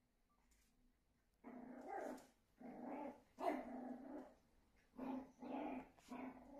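Shih Tzu barking and growling in about six short bursts, starting about a second and a half in, with a pause in the middle.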